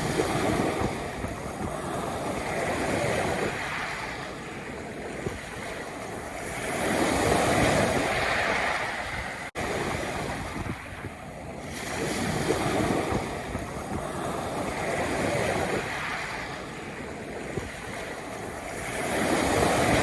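Sea waves breaking on a pebble beach, the rush of surf swelling and ebbing every few seconds as the water washes up and draws back over the stones. A very brief drop-out about halfway through.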